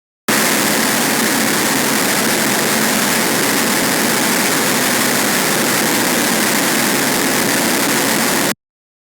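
Harsh noise wall: a loud, dense, unchanging wall of distorted static that cuts in just after the start and cuts off suddenly near the end.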